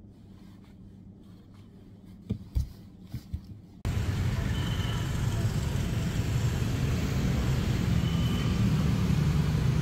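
A few soft knocks over quiet room tone, then, after a sudden cut about four seconds in, a steady low rumble of road traffic noise.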